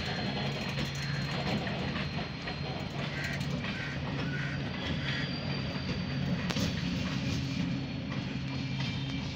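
Diesel-electric multiple unit (DEMU) train pulling out at low speed, the diesel engine in its power car running with a steady low drone over the noise of wheels on the rails.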